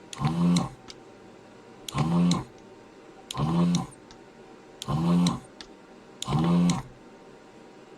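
ZD-915 desoldering station's vacuum pump buzzing in short bursts of about half a second, five times, roughly every one and a half seconds, each with a click of the gun's trigger, as it sucks molten solder out of the board's holes.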